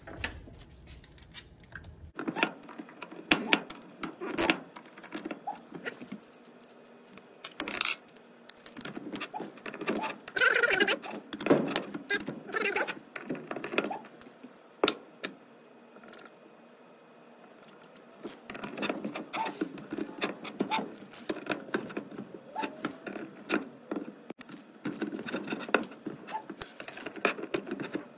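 Ratchet-head digital torque wrench clicking in short runs as bolts on an aluminium balance shaft oil pump housing are torqued down, with light metallic taps of socket and tool.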